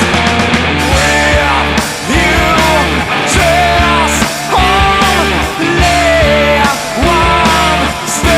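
Rock music: a full band with a steady drum beat, bass and a sliding melodic lead line.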